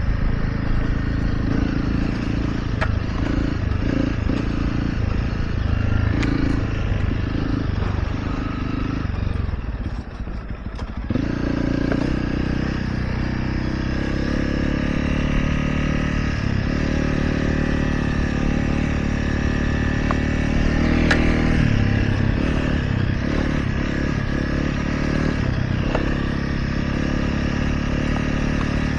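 Dirt bike being ridden, its motor running with a pitch that shifts as the throttle changes; the sound eases off briefly about ten seconds in, then picks up again.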